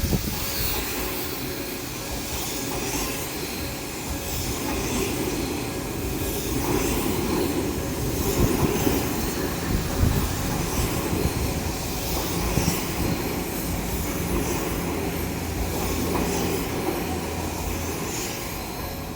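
Odakyu electric commuter train passing over a level crossing, its wheels running on the rails with a steady rumble and repeated clatter for the whole stretch.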